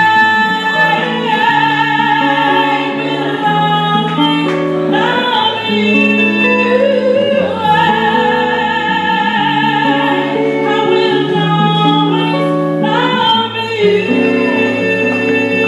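A woman singing into a microphone, holding long notes with vibrato, over guitar accompaniment.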